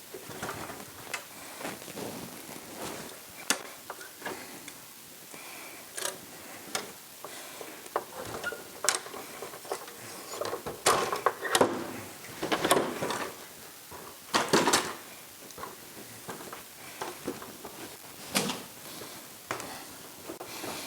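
Scattered knocks, clunks and scrapes of materials and tools being handled in a small room, busiest a little past halfway through.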